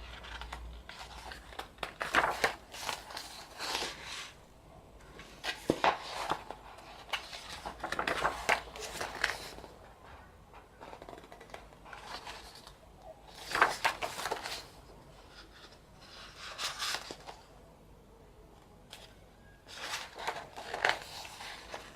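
Irregular rustling and handling noise of paper: photo book pages being turned and album contents moved about, in short scattered bursts with a few sharper clicks.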